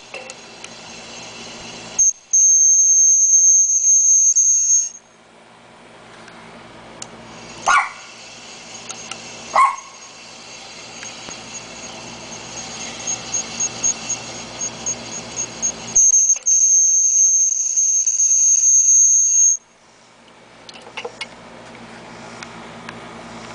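Hunter Original cast-iron ceiling fan running with its motor humming and its dry bearings squealing. A high-pitched squeal holds for about three seconds near the start, short chirps quicken into a second long squeal later, and two brief sliding squeaks come in between. The fan was never oiled, and its worn main bearing has a lot of play.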